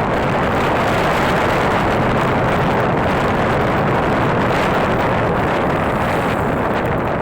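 Suzuki Skydrive Crossover scooter being ridden at a steady pace: its engine and road noise under a steady rush of wind on the microphone.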